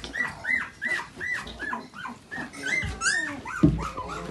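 Young puppy whimpering in a steady run of short rising-and-falling cries, about three a second. A dull bump sounds near the end.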